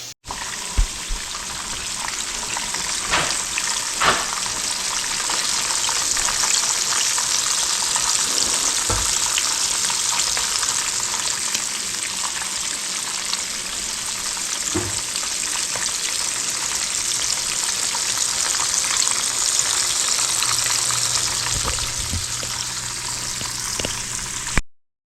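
Frog legs sizzling steadily as they fry in a hot pot, with a few sharp clicks and pops in the first half. The sizzle cuts off suddenly near the end.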